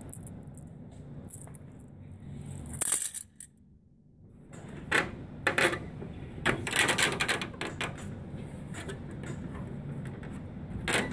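Small metal parts clinking and plastic covers of an HP Designjet Z3100 large-format printer knocking and rattling as it is handled during disassembly, in scattered irregular clatters with a denser run about halfway through.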